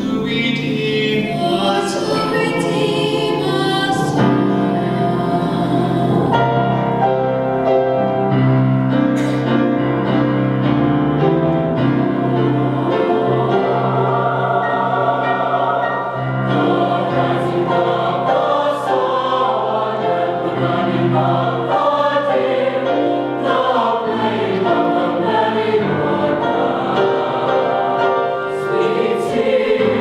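Mixed-voice high school choir singing in harmony.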